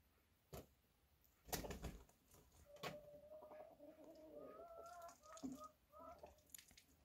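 A few faint knocks and clatters, then a chicken's low, drawn-out, wavering call for a few seconds that breaks into short notes near the end.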